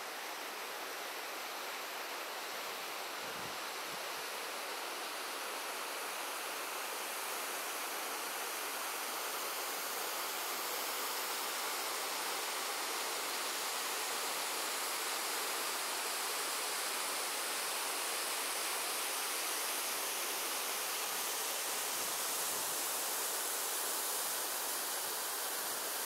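Small mountain waterfall and stream: a steady rush of falling water that grows slowly louder over the first half.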